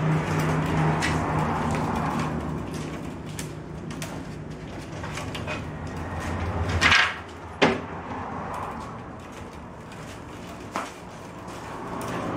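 Willow rods rustling and creaking as they are woven by hand into a basket, with a couple of sharp knocks about seven seconds in and another near the end, over a steady low hum.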